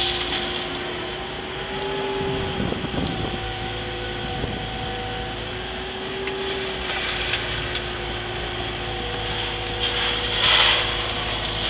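CAT M312 wheeled excavator's diesel engine and hydraulics running under load, heard from inside the cab, with steady whining tones that shift slightly in pitch as the boom and swing are worked. A brief gritty rush comes about ten and a half seconds in, as the bucket works the aggregate pile.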